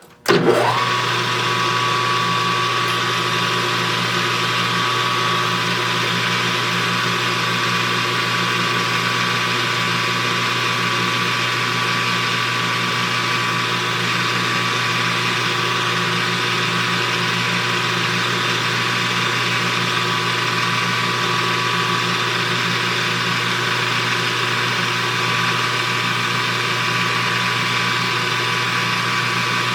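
Metal lathe motor starting about half a second in, spinning up quickly with a rising whine, then running steadily with an even hum and whine.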